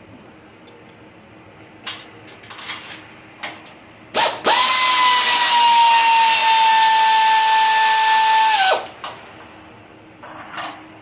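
A handheld power tool runs at high speed for about four seconds, a steady high whine over a hiss that sags a little in pitch and then stops. A few sharp knocks come before it and one or two after.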